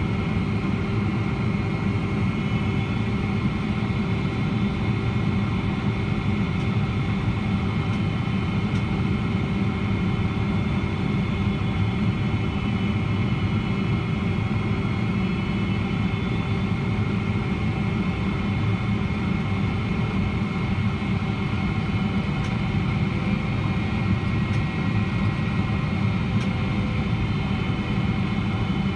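Steady in-cabin noise of a Boeing 777-300ER heard beside the wing: a low, even roar of airflow and its GE90-115B turbofans, with a few steady whining tones above it.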